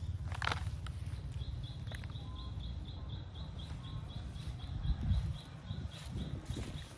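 A high chirp repeating steadily, about four times a second, over a low rumble. Grass rustles near the start, and a few soft thumps and rustles come from about five seconds in as someone moves through the grass.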